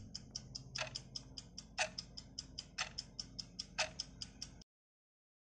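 Countdown-timer clock-ticking sound effect: fast, even ticks at about five a second, with a louder tick once a second, running down the answer time. It cuts off suddenly near the end.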